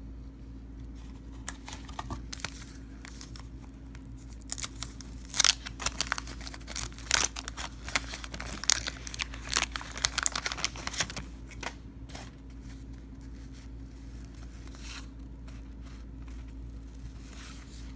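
A wax-paper pack of 1990 Fleer basketball cards being torn open, the wrapper ripping and crinkling in a quick run of crackles from about four seconds in to about eleven seconds in, with a few lighter rustles before and after. A steady low hum runs underneath.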